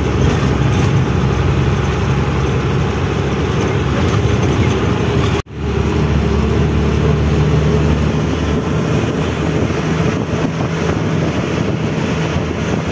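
Twelve-wheel truck's engine running steadily with road noise, heard from the cab while driving. It cuts out sharply for a moment about five and a half seconds in.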